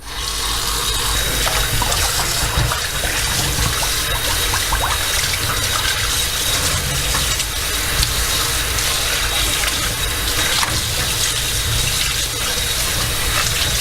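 Kitchen tap running steadily into the sink, with a few light knocks along the way.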